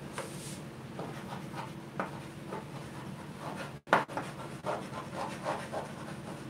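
Chalk writing on a chalkboard: a run of short, irregular scratching strokes and taps as a word is written, over a steady low hum.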